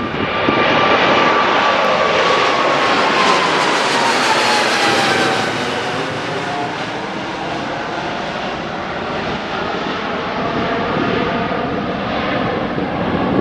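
Boeing 777-300's twin GE90 turbofan engines at climb power as the airliner passes overhead just after takeoff: a loud jet roar with a whine that falls in pitch over the first several seconds as it goes by, then a steadier, slightly quieter roar as it moves away.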